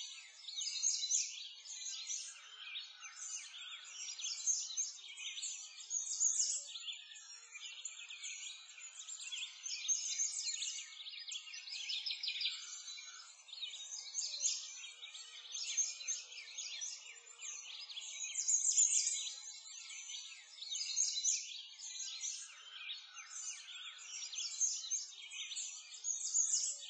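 Many small birds chirping and singing together in a dense, continuous chorus of short high chirps, with no low sounds under it.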